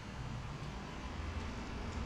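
Steady low mechanical rumble with a hiss over it.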